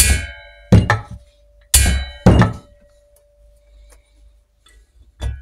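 Sharp metal knocks of a hammer tapping a steel rocker-spindle tool set in an aluminium cylinder head: four blows in the first two and a half seconds and one more near the end, with a ringing tone hanging on after them.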